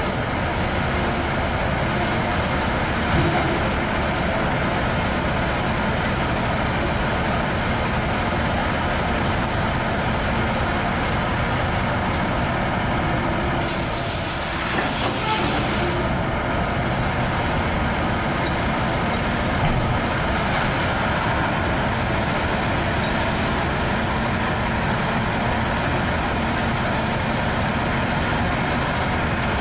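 Diesel engines of a Caterpillar excavator and a tri-axle dump truck running steadily while the excavator loads the truck, with a hiss of air lasting about two seconds midway.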